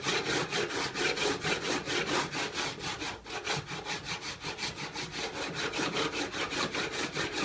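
Hand plane scraping over a re-sawn wooden board in quick, even strokes, about five a second, to level it to a uniform thickness.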